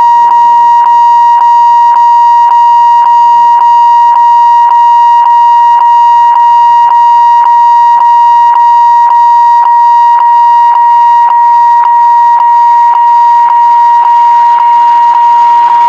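Railway electronic warning alarm sounding continuously: a loud, steady high tone pulsing about twice a second.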